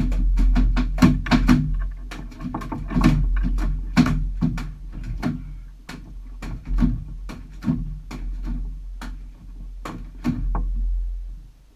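Irregular hollow knocks and clunks on an aluminium boat hull, about two or three a second and thinning out toward the end, over a steady low rumble.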